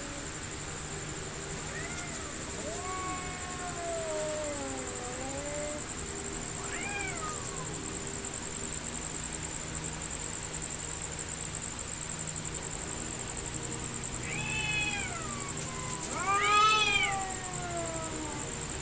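Two domestic cats caterwauling in a fight standoff: long, wavering yowls that rise and fall in pitch, several through the stretch, the loudest rising howl about two-thirds of a second past the sixteen-second mark near the end. A steady high-pitched whine runs underneath.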